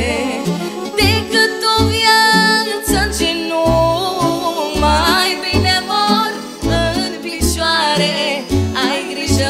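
A female voice singing a slow song line with wide vibrato and long, ornamented held notes, over live keyboard accompaniment with a steady bass beat.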